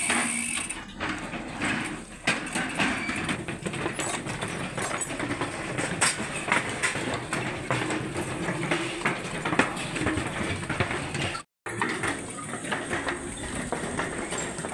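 Mountain bikes wheeled and carried across a wooden-plank footbridge: irregular clicking of freewheel hubs, with knocks and rattles of the bikes and shoes on the boards. The sound cuts off abruptly about eleven and a half seconds in. A steadier hiss with a thin high tone follows.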